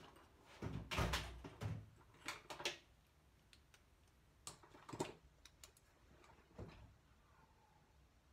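Scattered knocks and clatters of things being handled and set down on a workbench, the loudest about a second in, then a few lighter clicks and taps spaced a second or so apart.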